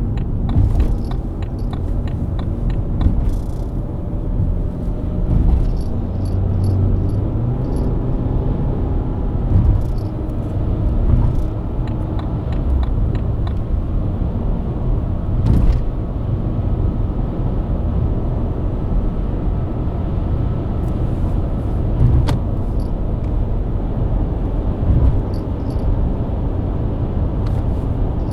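BMW E90 323i's inline-six engine running at a steady cruise under deep tyre and road rumble, with a few short sharp knocks along the way.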